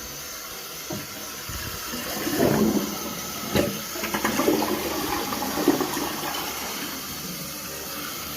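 Water running into a toilet tank through a newly fitted fill valve as it refills, with a few sharp knocks from handling the valve about a second, three and a half and five and a half seconds in. The water is rising above the desired line, so the valve's float has to be set lower.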